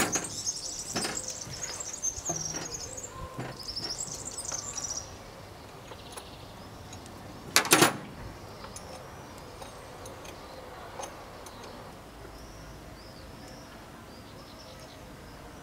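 Small birds chirping and warbling for the first five seconds, then only faint chirps. Over them come scattered light clicks and taps from hand work in an old Land Rover's engine bay, and one sharp metallic knock about eight seconds in.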